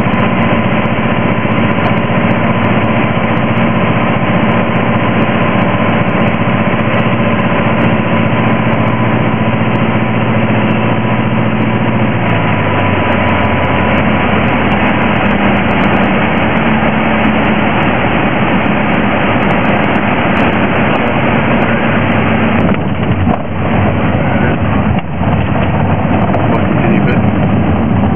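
Piper Arrow's engine and propeller heard from inside the cabin, running steadily on final approach; about twelve seconds in the engine note drops as power comes back for the landing, and it runs on at the lower setting through touchdown and rollout. The noise briefly dips twice near the end.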